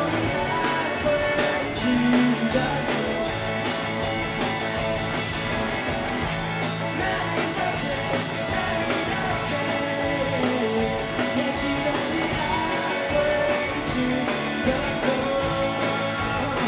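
Live rock band playing: two electric guitars, an electric bass and a drum kit, at a steady full level.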